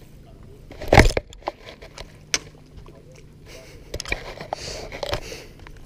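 Handling noise close to the microphone: one loud knock about a second in, a few sharp clicks, then a stretch of rustling and scraping with clicks as a finger brushes over the camera.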